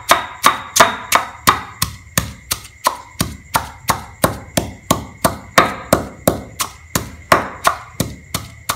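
Pestle pounding in a stone mortar, crushing garlic, salt, sugar and green bird's eye chilies into a paste: steady dull strikes at about two a second, a couple landing harder near the end.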